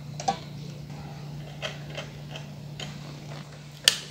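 A few scattered light clicks over a steady low hum, with one sharper click near the end.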